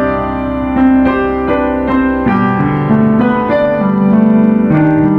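Piano music, a melody of notes over held lower notes.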